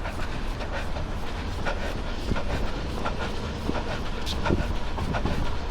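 Running footsteps on pavement, evenly spaced at about three every two seconds, over a steady low rumble of wind on the microphone.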